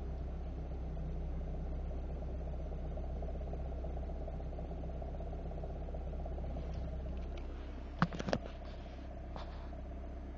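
Car engine idling with the clutch pedal up, carrying a steady bearing noise over the idle that a new clutch kit has not cured; the owner cannot tell which bearing it is. About eight seconds in come two sharp knocks close together, then a fainter one.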